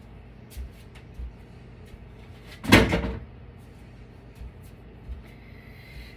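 Battery backup being dismantled on a table: a few light knocks, then one heavy knock with a short ring about three seconds in, as the heavy backup batteries come out of the casing.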